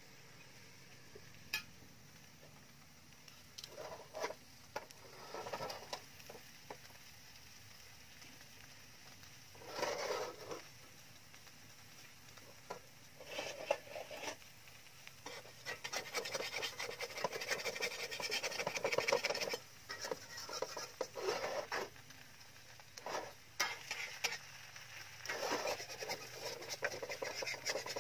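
Metal spatula scraping and stirring in an aluminium wok in irregular bursts, busiest in the second half, over a faint sizzle of a thin batter crepe frying.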